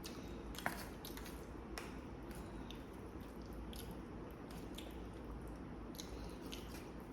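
A person chewing food close to the microphone, with wet mouth clicks and smacks scattered through; one sharper click comes just under a second in.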